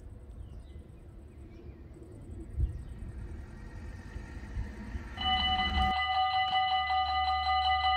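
Belgian level crossing warning bell starts up about five seconds in: a rapid, steady electronic ringing. Before it there is only a low wind rumble with faint bird chirps.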